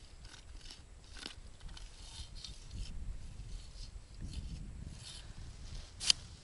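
Bare hand working in the snow and slush of an ice-fishing hole: a run of soft crunches and scrapes, with one sharp click about six seconds in.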